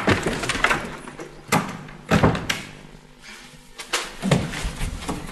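A door banging shut, followed by a few more sudden thumps and knocks.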